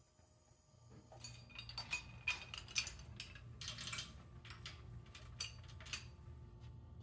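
Metal chain and hook clinking and rattling in a run of irregular light clicks starting about a second in, as a shop crane's lifting chain is unhooked from the engine.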